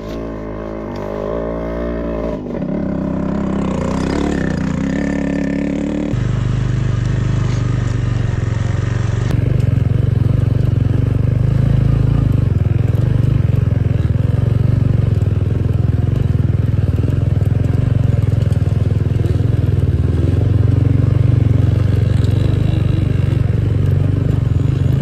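Motorcycle engine running as it is ridden off-road. The note shifts in pitch over the first six seconds, then holds a steady lower drone for the rest.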